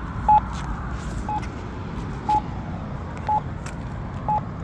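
Campbell accessible pedestrian signal pushbutton sounding its locator tone: a short beep about once a second, five times, over steady traffic rumble. The slow once-a-second beep means the signal is in its wait phase, not the walk phase.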